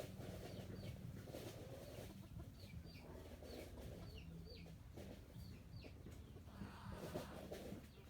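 Chickens clucking faintly, with short high chirps that fall in pitch, often in pairs, repeating every second or so.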